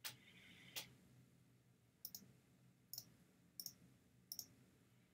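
Computer mouse clicking, about six short sharp clicks spaced roughly a second apart, as answer choices are picked on a web page.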